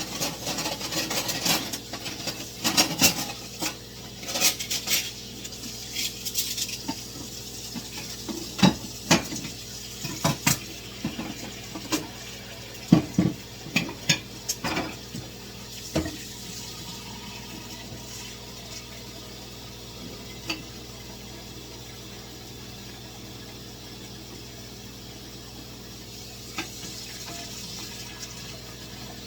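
Dishes and cutlery clinking and clattering as they are handled, with frequent sharp knocks for about the first half, then thinning to occasional clicks over a steady low hiss.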